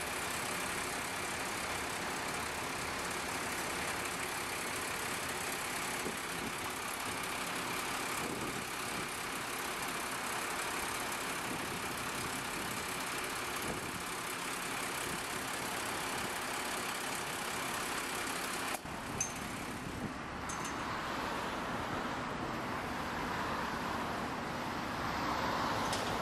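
Diesel engines of a mobile crane and heavy-haulage trucks running steadily, mixed with road traffic noise. The sound changes abruptly about two-thirds of the way through to a more even traffic-like hum.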